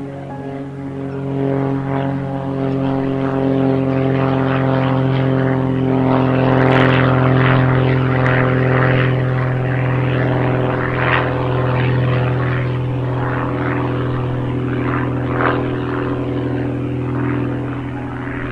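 Propeller airplane engine running steadily, growing louder over the first couple of seconds and then holding.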